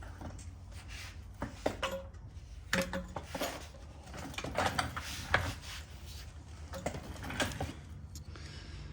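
Engine parts and hand tools being handled on a workbench: scattered light metal clinks and knocks with some scraping and rubbing.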